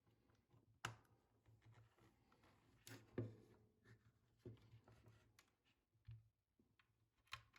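Faint handling noises: a few scattered small clicks and knocks, the loudest about three seconds in, as parts of the opened keyboard are worked on by hand.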